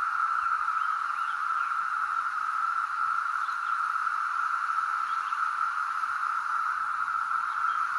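Chorus of periodical (17-year) cicadas: a loud, unbroken high drone holding one steady pitch.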